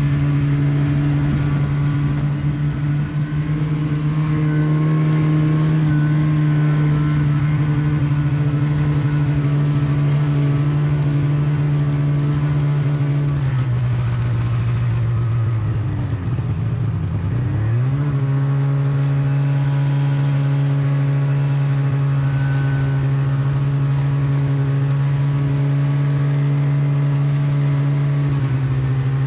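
Snowmobile engine running steadily at cruising speed. A little over halfway through, the throttle eases off and the engine note drops for a few seconds, then climbs back up to a steady cruise as the throttle opens again.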